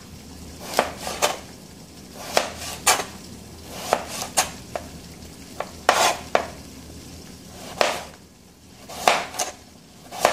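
Kitchen knife slicing a raw carrot into half-moon slices, each cut ending in a sharp knock of the blade on the board, in uneven runs of two or three cuts.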